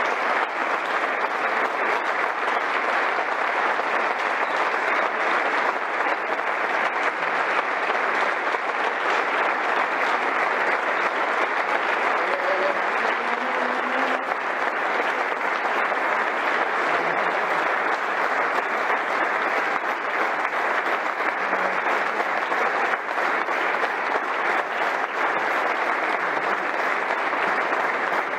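Steady, unbroken applause from a roomful of people clapping: a standing ovation.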